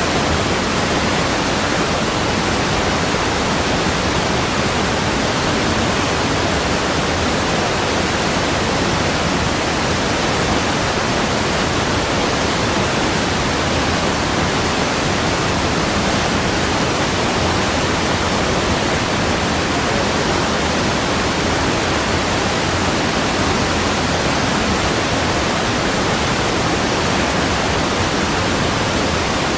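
Rushing water with a steady, unbroken hiss and no surges or splashes.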